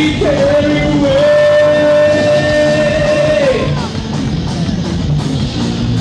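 Rock band playing live, with electric guitar, and a singer holding one long note for about three seconds that slides down and breaks off partway through.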